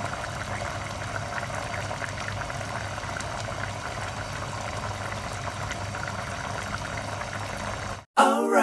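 Thick cream sauce of chicken pastel simmering in a pan, steady bubbling with small pops over a low hum. About eight seconds in it cuts off and a sung intro jingle begins.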